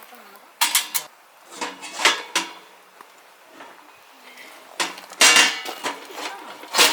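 Metal cookware and utensils clinking and clattering in several short clusters, some strikes ringing briefly.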